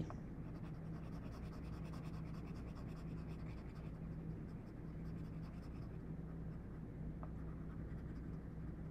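Graphite pencil shading on paper: rapid, repeated scratchy strokes, fainter after about four seconds, over a steady low electrical hum.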